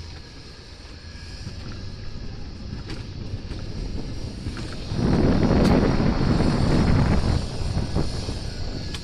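Alpine coaster sled rolling along its metal tube track: a steady rumble that swells into a much louder rush about five seconds in and eases again about three seconds later.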